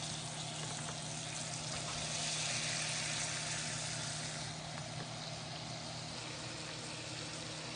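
Pork chops sizzling in a frying pan, a steady hiss that swells for a couple of seconds near the middle, over a low steady hum.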